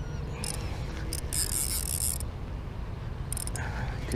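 Ultralight spinning reel's drag buzzing in several short bursts and one longer run of about a second as a hooked fish dives and pulls line, over a steady low rumble.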